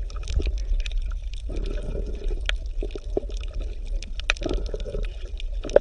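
Underwater ambience: a steady low rumble with bubbling and many scattered clicks and pops.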